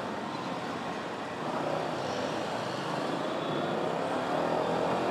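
Suzuki Gixxer SF single-cylinder motorcycle engine pulling away from a slow roll, its pitch rising gradually as it accelerates, amid surrounding traffic noise.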